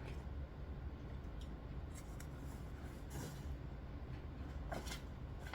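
Paperback comic books being handled: a few brief rustles and scrapes of the paper covers sliding, over a faint steady low hum.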